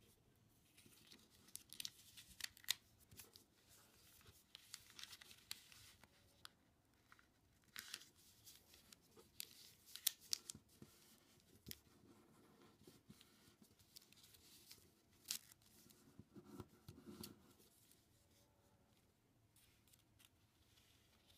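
A sheet of origami paper being folded and creased by hand: short sharp crackles and rustles in scattered bursts as fingers press and smooth the folds flat.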